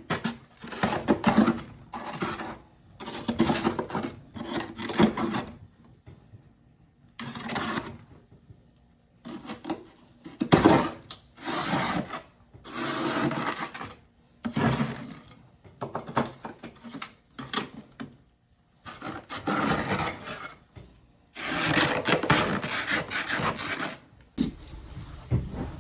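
Hard, porous humidifier freezer-frost chunks crunching between the teeth close to the microphone: a series of crunching bites, each lasting up to a second or so, with short pauses between. Near the end a steady hiss with a faint high whine takes over.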